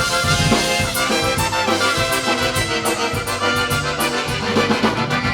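Polka band playing an instrumental passage with a steady beat, the accordion to the fore.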